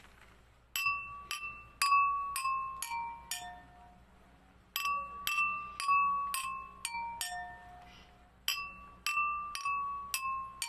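Metal spoon tapping a row of stemmed wine glasses filled with different amounts of water, each glass ringing a clear note. Three runs of about six quick taps, each run stepping down in pitch as the glasses get fuller.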